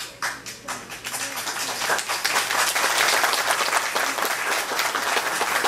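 Audience applauding: a few scattered claps that build within about a second into full, steady applause as the music of the performance ends.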